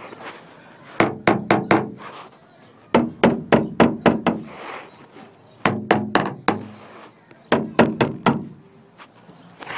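Rapid knocking on the van's sheet-metal body panels in four quick bursts of four to seven strikes, each knock ringing briefly: a knock test of how much the peel-and-seal sound deadener damps the panel.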